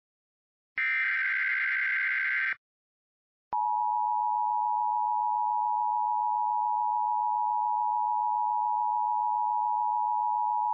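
Emergency Alert System signal: the last repeat of the SAME digital header, a harsh buzzing data burst of about two seconds, stops. About a second later the EAS attention signal comes on, a steady two-tone beep (853 and 960 Hz) that announces an emergency alert, here an Amber Alert.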